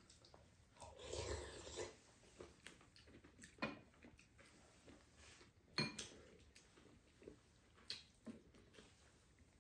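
Quiet eating at the table: soft chewing and breathing, with a few light clicks of spoons and chopsticks against ceramic bowls, the sharpest a little before six seconds in. A short breathy noise comes about a second in.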